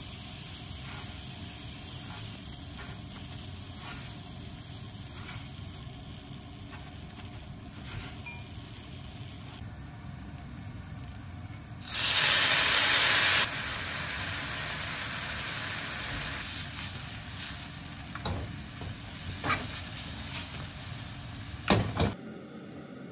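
Soft rustling of gloved hands pressing a taro croquette into panko, then about halfway through a sudden loud burst of sizzling as ponzu is spooned into a hot frying pan of browned daikon slices. The sizzle settles to a steady frying hiss, with a couple of clacks of tongs against the pan near the end.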